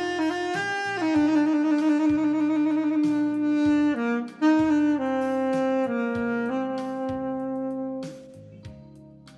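Instrumental passage of a pop song with no vocals: a lead melody of long held notes over bass and drums. The music drops away about eight seconds in.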